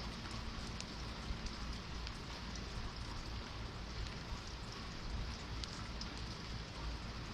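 Steady rain falling, with scattered sharp drop ticks over an even hiss and a low rumble underneath.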